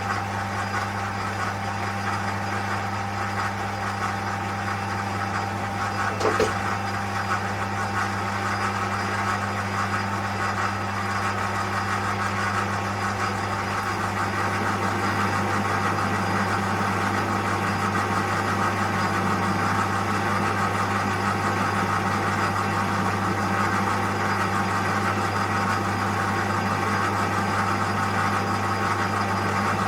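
Colchester Master lathe running under power as it turns a cut, a steady motor hum with gear whine. There is one brief sharp squeak about six seconds in, and the sound grows slightly louder about halfway through.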